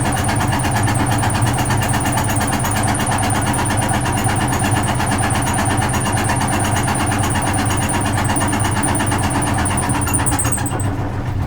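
Vintage Frigidaire Super Deluxe Automatic 50 washing machine running steadily with a low motor hum and a thin high whine. The whine cuts out near the end as the machine begins to wind down at the end of its cycle.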